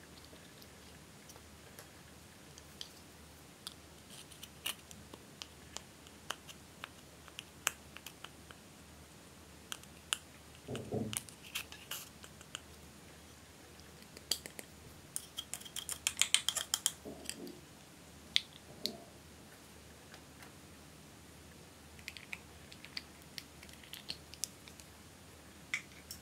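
Small plastic clicks and taps as eyeshadow compacts are handled, with a quick run of sharp clicks and snips about two-thirds through as scissors work at a plastic compact's casing. A dull knock comes a little before it.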